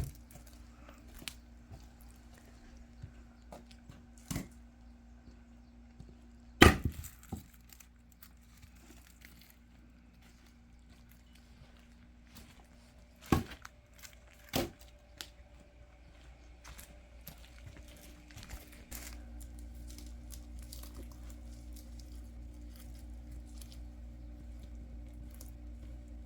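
Pieces of firewood knocking against one another or a hard surface: a handful of sharp wooden knocks several seconds apart, the loudest about seven seconds in. A steady low hum runs underneath and gets louder about nineteen seconds in.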